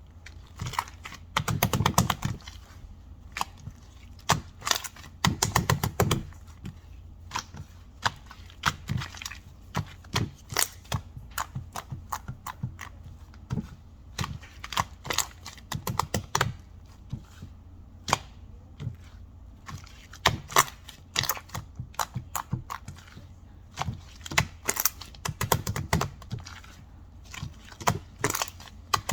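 Sharp clicks and taps in irregular bursts, separated by short pauses, some with a dull low thud.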